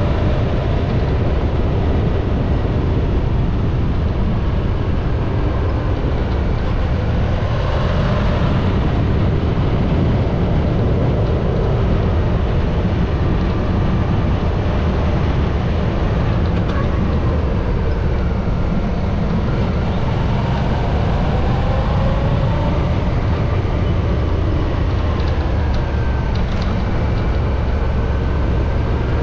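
Steady wind rush on the microphone over a motorcycle engine running on the road, its pitch rising and falling as the speed changes.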